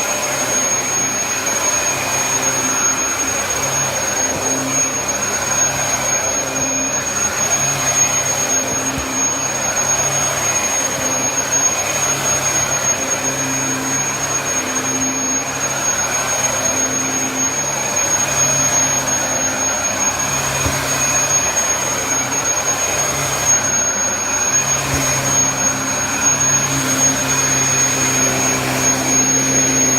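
Dyson DC33 upright vacuum cleaner running steadily: airflow and motor noise with a constant high-pitched whine, and a lower hum that swells and fades in stretches of about a second.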